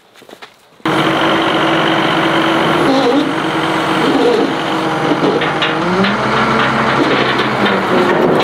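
Dresser wheel loader's diesel engine running loud as the raised bucket is tipped forward, its note shifting a few times. It starts abruptly about a second in.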